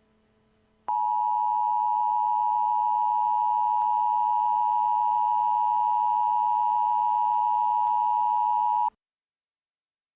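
Emergency alert attention tone: a single steady, high tone that comes on about a second in, holds for about eight seconds and cuts off suddenly, announcing a hurricane watch.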